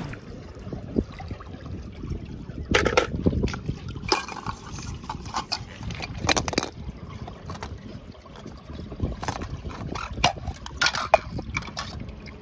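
Water sloshing and trickling, broken by irregular splashes and small clicks and knocks as toy cars are washed in water.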